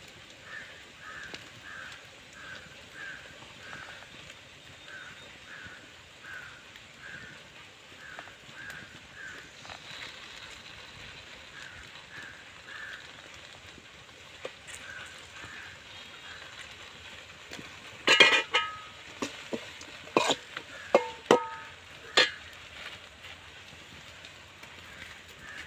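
A small bird chirping a short call over and over, about twice a second. About two-thirds of the way in come several loud metallic clanks with a ringing tone: a steel ladle knocking against the aluminium cooking bowl as the food is stirred.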